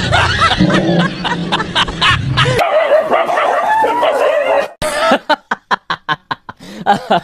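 A dog yelping and barking in short, rising and falling cries, then, from about five seconds in, a run of evenly spaced, short laughs.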